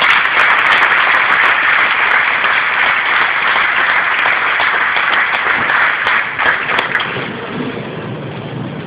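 Stadium crowd applauding, thinning out over the last couple of seconds.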